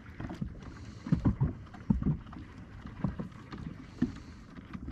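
Small waves lapping against a boat's hull: irregular low slaps and knocks at uneven intervals.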